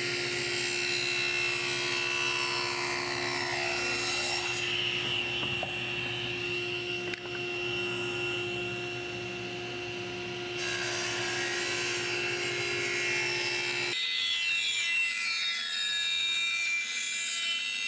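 SawStop table saw running, with a small piece of cherry fed through the tilted blade twice. About fourteen seconds in, the sound changes abruptly to a bandsaw cutting the same wood.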